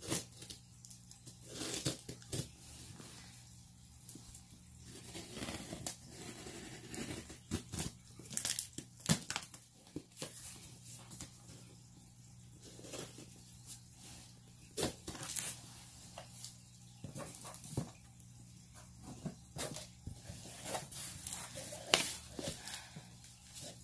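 Snake shipping packaging being torn open and crinkled by hand, a run of irregular sharp tears and crackles.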